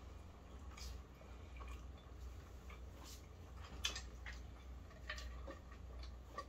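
Faint chewing and mouth sounds of people eating sauced fried chicken: scattered small clicks and smacks over a low steady hum.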